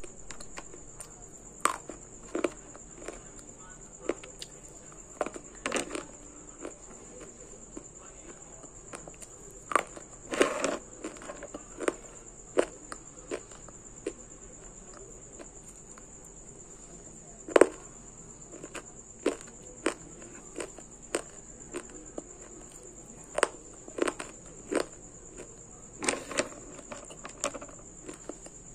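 Multani mitti (fuller's earth clay) being bitten and chewed close to the microphone. Irregular sharp crunches come every second or so, the loudest about two-thirds of the way through, over a steady high-pitched whine.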